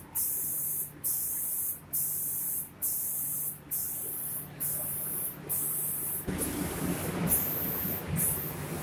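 The air spray gun of an automatic cabinet-door spray-painting machine hisses in bursts that cut off briefly about once a second, over a steady low machine hum. From about six seconds in, a louder, rougher noise joins.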